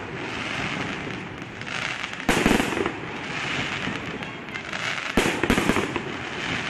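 Fireworks display: aerial shells bursting with a sharp bang about two seconds in and a quick cluster of bangs around five seconds in, with a steady hiss between them.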